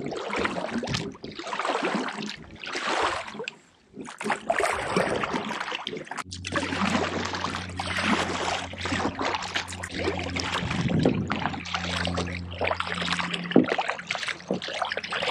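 Water splashing and rushing around a kayak, uneven and fairly loud, with a steady low hum joining in about six seconds in.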